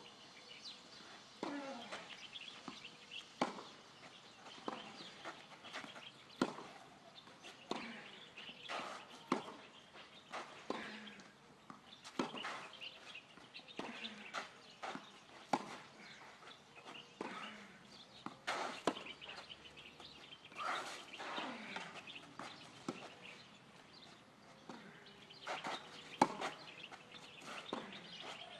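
Tennis ball struck back and forth by rackets in a sustained rally, a sharp hit about every second and a half.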